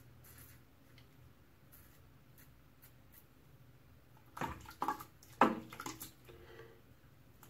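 Faint scrape of a Merkur 34C safety razor across lathered stubble at the start. About four and a half seconds in comes a short run of splashes and knocks, the loudest one sharp, as the razor is rinsed at the sink.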